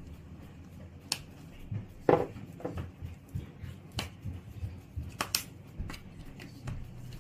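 Scattered light clicks and taps from spice shakers and jar lids being handled over a pan while seasoning raw chicken wings, with one louder knock about two seconds in.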